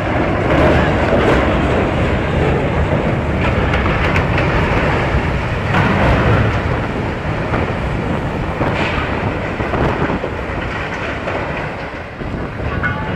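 Loud, continuous rumbling and grinding of a large ship's steel hull ploughing into and crushing the side of another ship.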